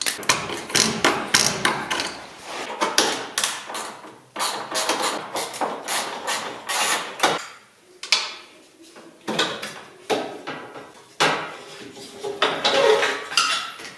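Irregular clicks, knocks and plastic rattles of hand work on car trim, snipping and pulling off cable ties, with a couple of short pauses.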